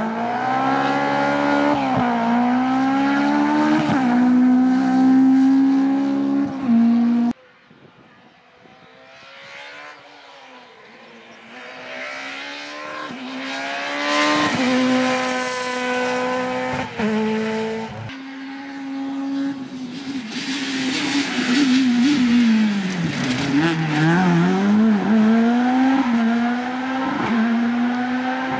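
Rally car engines at full throttle, several passes cut together. The revs climb and drop back sharply at each gear change. In the last pass the engine note sinks and then climbs again as the car slows and pulls away.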